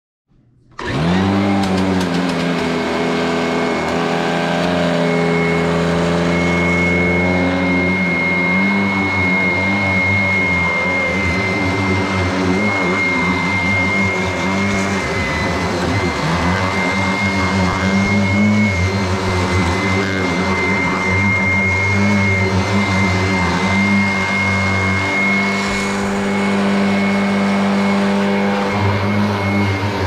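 Upright vacuum cleaner switched on, its motor spinning up within a second to a steady running drone with a high whine, as it is worked over a mattress.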